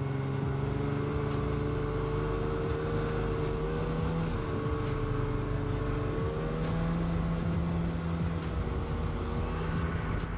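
Snowmobile engine running steadily under way, its pitch holding fairly even with small rises and falls.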